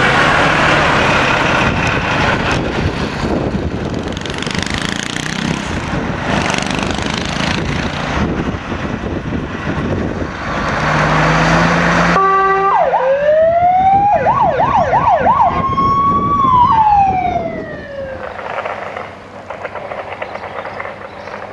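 A fire engine's diesel engine running as it drives away, then a fire engine siren that rises, switches to a fast yelp of about four cycles a second, holds a high note and falls away.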